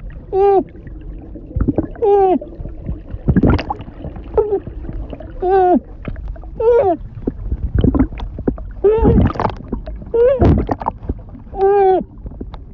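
A woman voice-acting drowning underwater: about seven short muffled, strained cries ('mmph'), each sliding down in pitch, with gurgling bubble noises ('glubs') between them.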